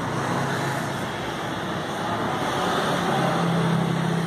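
Steady street traffic noise with a low engine hum that rises slightly about three seconds in.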